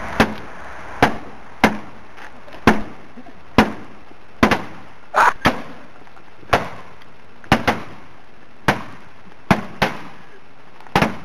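An old Ford car's sheet-steel bonnet struck again and again by hand: about a dozen sharp blows, roughly one a second, some landing in quick pairs.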